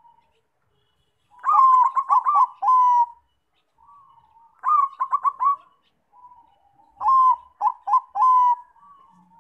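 Zebra dove (Bangkok-strain perkutut) cooing: three phrases, each a quick run of short, clipped notes ending in a longer coo, with soft single coos between.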